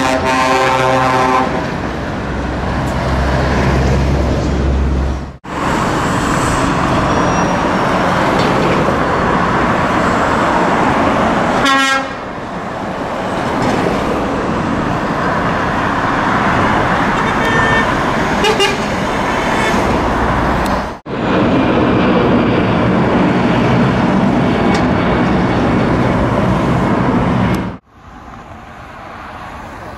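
Heavy trucks driving past with engines running and tyre noise, in several separate passes. Air horns sound briefly at the start and again about twelve seconds in.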